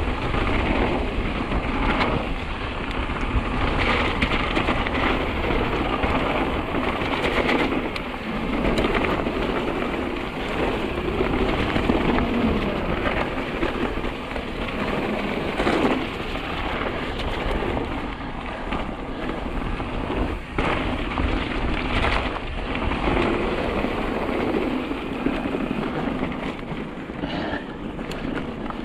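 Mountain bike riding down a rough trail: tyres rolling over rough ground, with frequent knocks and rattles as the bike goes over bumps. Wind rumbles on the microphone throughout.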